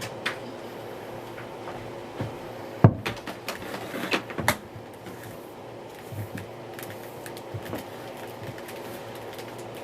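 Plastic knocks and clicks as the mains cable is wound onto the cable hooks of a Dyson Light Ball upright vacuum cleaner. The sharpest knock comes about three seconds in, followed by a run of rattling clicks to about four and a half seconds, then a few softer knocks, over a faint steady hum.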